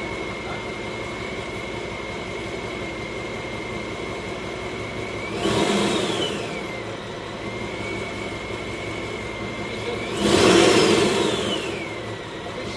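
1995 Camaro Z28's LT1 V8 idling with a steady high whine from its freshly rebuilt Powerdyne BD-11A supercharger. The throttle is blipped twice, about five seconds in and near the end: each time the whine climbs sharply and then glides back down to idle, the second rev higher and louder.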